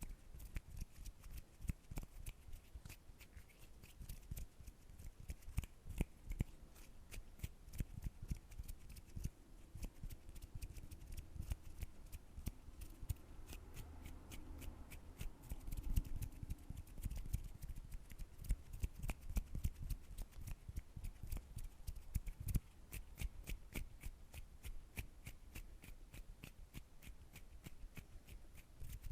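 ASMR hand sounds close to the microphone: fingers and palms rubbing and fluttering, making rapid, irregular crackling clicks and rustles.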